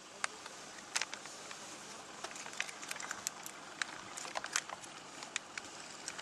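Rhinoceros grazing at close range: irregular sharp crunches and snaps as it tears and chews grass.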